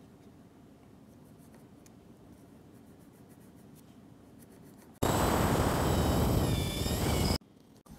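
A pencil scratching faintly as it traces an outline on a wooden handle blank, then about five seconds in a power drill runs for a couple of seconds, its twist bit boring into the end grain of a wooden block, the motor whine wavering under load before it stops abruptly.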